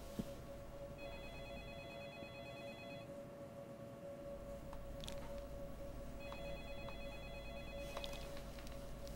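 Electronic office telephone ringing: two warbling rings, each about two seconds long and about three seconds apart, over a steady electrical hum. A few faint clicks fall between and at the end of the rings.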